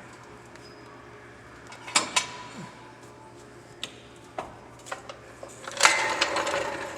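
Metal clanking as a floor jack and steel jack stands are set under a truck. Two sharp clanks come about two seconds in, then several lighter taps, and a longer clattering scrape near the end.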